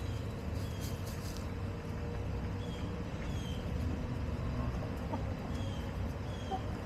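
Backyard hens clucking softly now and then over a steady low rumble, with a few short, high falling chirps.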